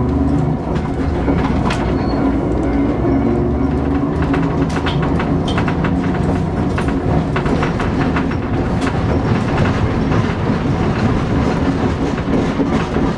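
Hankai Tramway Mo161 tram running, heard from inside the car: its nose-suspended (tsurikake) traction motors and gearing give a steady growling hum, over which come irregular clicks and rattles from the wheels on the track and the old car body.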